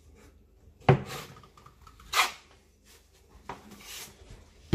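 Drywall trowel scraping and knocking against a mud pan while loading joint compound, four short strokes about a second and a quarter apart, the first the loudest.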